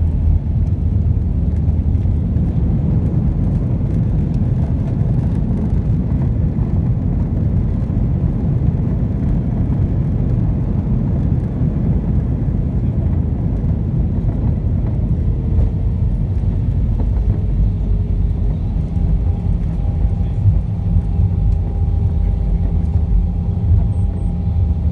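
Airbus A319 landing rollout heard inside the cabin: a loud, steady low rumble of the wheels on the runway and the engines as the jet decelerates with its ground spoilers up. A faint steady whine joins in about halfway through.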